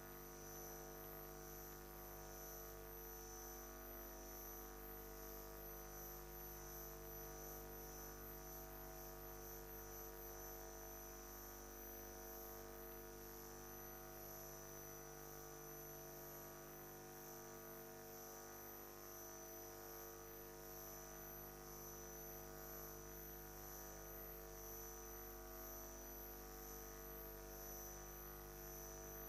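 Near silence: a faint, steady electrical hum with a thin high-pitched whine over it, from the broadcast audio feed.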